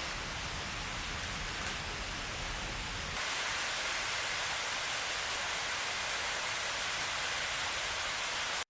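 Steady, even rushing noise. About three seconds in it turns brighter and thinner, and it cuts off abruptly at the end.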